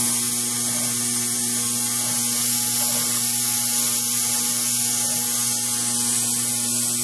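Variable-speed 2x72 Pro Cut belt grinder running steadily at sharpening speed, its motor humming, with the hiss of the coolant misting system spraying over the belt.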